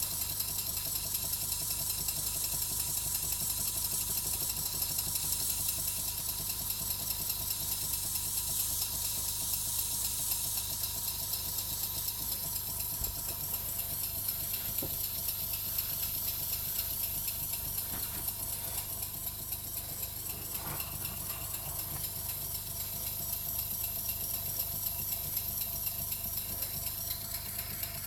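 PM Research mill engine, a small single-cylinder model steam engine, running on compressed air: steady, evenly spaced exhaust beats over a constant hiss of air, with light mechanical rattle.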